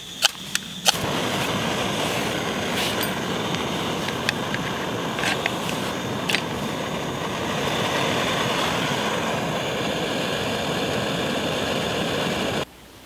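A ferro rod scraped over a gas canister stove burner, giving a few sharp strikes, then the burner lights about a second in and runs with a steady hiss of burning gas, with a few light metal clinks as the pot is handled. The hiss cuts off abruptly just before the end.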